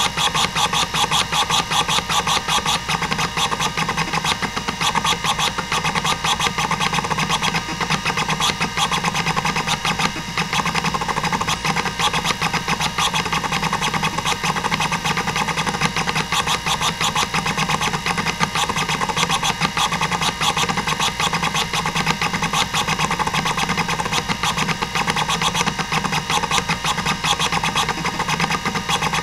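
Hitachi DK505-2 26 MB stepper-motor hard drive seeking nonstop during a seek-time benchmark: a rapid, even chatter of head-stepping clicks over a steady hum.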